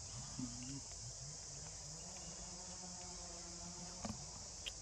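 Faint, steady, high-pitched drone of a forest insect chorus, with a few faint low pitched sounds underneath and a light tick near the end.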